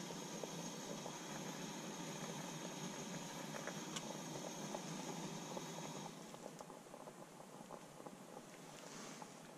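Navitas camping coffee maker brewing: a steady hiss with faint bubbling and ticking, which drops in level about six seconds in.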